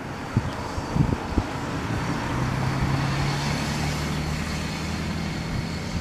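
Street traffic noise with a motor vehicle's engine running as a steady low hum, coming in about two seconds in. A few sharp knocks sound in the first second and a half.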